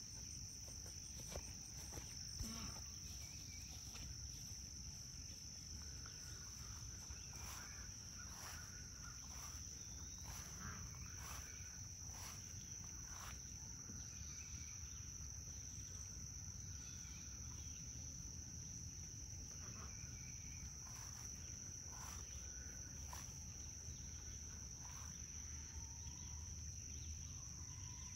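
A steady, high-pitched insect chorus droning without a break, with faint short chirps now and then.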